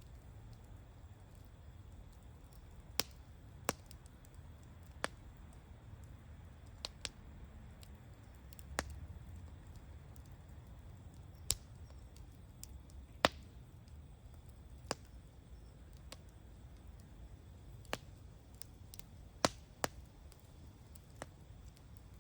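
Campfire crackling: sharp, irregular pops and snaps from burning wood, a dozen or so spread unevenly, over a low steady rumble of the fire.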